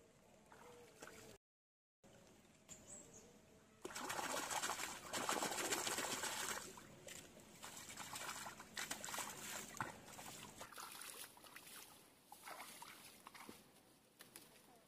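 Hands splashing and sloshing in shallow muddy pond water. The splashing starts suddenly about four seconds in and is busiest for a few seconds, then thins out into scattered smaller splashes.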